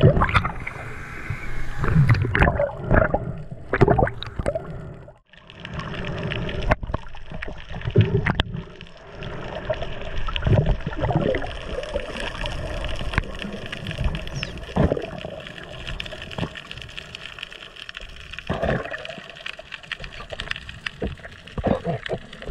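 Underwater sound picked up through a camera housing while freediving: bubbles gurgling and water moving, with scattered clicks and knocks. The sound breaks off briefly about five seconds in.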